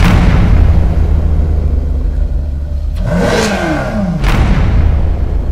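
A car engine running at steady high revs. About three seconds in it revs up and falls away again, with a second surge just after four seconds.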